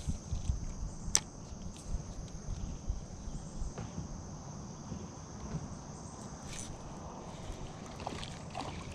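Steady high-pitched chorus of insects, with one sharp click about a second in and a few fainter ticks later.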